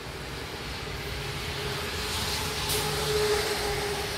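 A vehicle passing on a wet road: tyre hiss and engine hum swell to a peak about three seconds in, then ease off.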